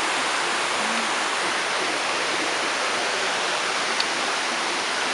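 Heavy tropical downpour: a steady, dense hiss of pouring rain.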